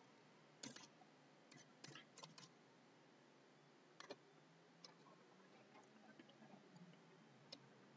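Near silence: room tone with a handful of faint, scattered clicks from computer keys and a mouse.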